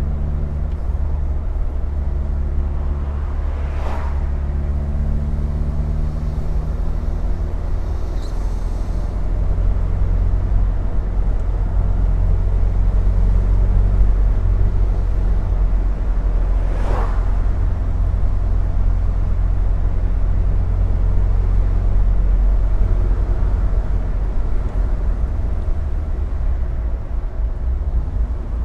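Triumph Herald's four-cylinder engine running at steady road speed with the top down, a continuous low rumble mixed with wind and road noise. Brief whooshes come about 4 and 17 seconds in.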